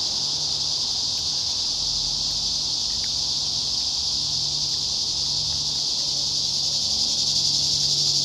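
A steady, high-pitched chorus of insects, unbroken throughout.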